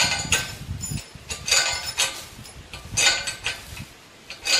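Steel log chain rattling and clinking as it is handled on a tractor boom pole. The clinking comes in four or five short jingling bursts about a second apart.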